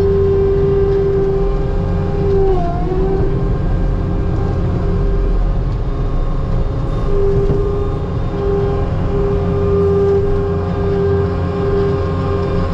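Heavy loader engine running steadily under load, with a high hydraulic whine that holds, breaks off briefly about two and a half seconds in, and comes and goes through the second half.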